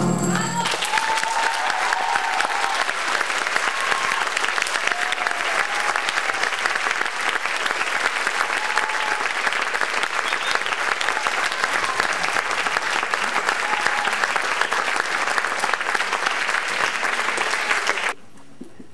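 Theatre audience applauding, with a few voices calling out, as the dance music stops under a second in. The clapping stays steady and cuts off abruptly near the end.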